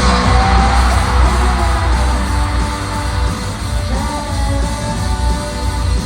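Loud live rock music through a concert venue's sound system, with heavy bass, as a song starts, and an audience cheering and screaming over it.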